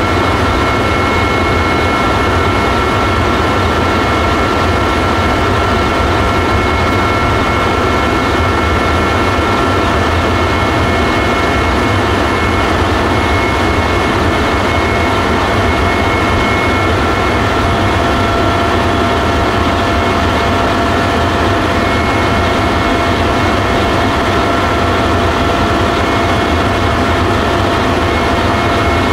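Helicopter in flight heard from aboard: a loud, steady drone of engine and rotor with a few constant high whining tones over it.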